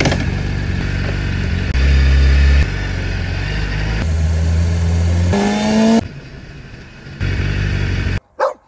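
Motorcycle engine running on the move, with wind rush. Its pitch holds and shifts in steps and climbs in a brief rev a little past five seconds. It cuts off abruptly near the end, and one short sound follows.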